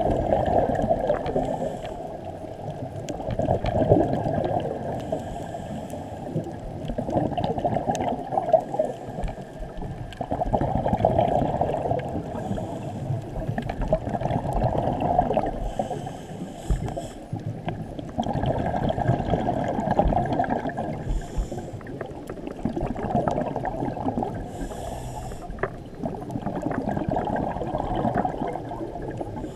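Scuba diver breathing underwater through a regulator: a slow cycle of bubbly exhalations, one swell roughly every four seconds, over a steady underwater rumble.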